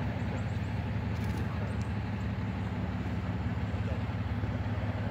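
An engine idling steadily nearby, a low, even drone.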